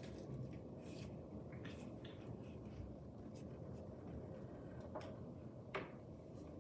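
Wooden pencil scratching on paper as lines are drawn, in short faint strokes, with one sharper tick near the end, over steady low background noise.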